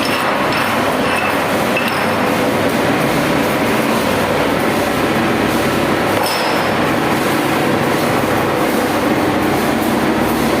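An electric welding arc crackling and hissing steadily and without a break.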